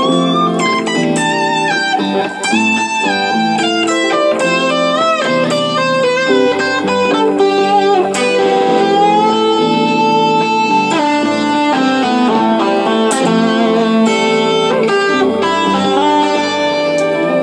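Electric guitar played through a Kemper profiling amp, improvising a lead line over a looped guitar backing of repeating chords. The lead is full of string bends and vibrato, with one long held, bent note near the middle.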